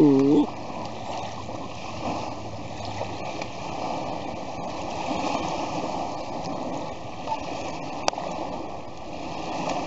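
Small lake waves lapping and washing on a sandy shore, a steady wash of water noise. A loud held tone ends about half a second in, and a single sharp click sounds near the end.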